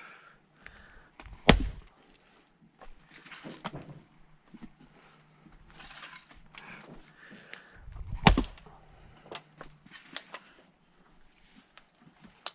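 Two heavy axe strikes into firewood being split, about seven seconds apart. Between them come quieter scuffs and small knocks.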